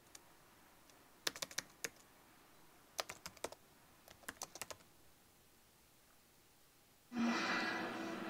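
Typing on a computer keyboard: three quick runs of about five keystrokes each over a quiet room. About seven seconds in, louder television sound starts abruptly.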